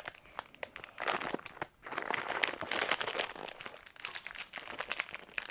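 Plastic toy packaging crinkling and crackling as it is handled and opened, in irregular bursts of small clicks.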